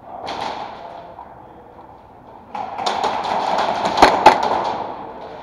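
Airsoft gunfire: about two and a half seconds in, a fast string of sharp pops and clicks starts, and two much louder, sharp shots from the close-at-hand airsoft pistol come about four seconds in, a third of a second apart.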